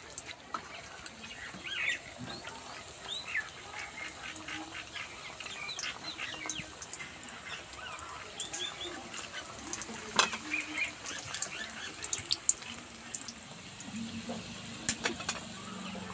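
Vegetable spring rolls deep-frying in hot oil in a karahi: a steady sizzle and bubbling, with a few sharp pops, one about ten seconds in and a couple near the end.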